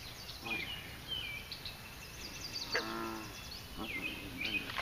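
Birds chirping repeatedly in short, sweeping notes, with one short, low, moo-like call about three seconds in.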